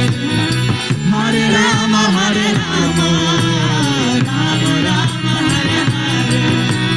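Devotional kirtan music: voices singing over a steady drone, with tabla drums played throughout.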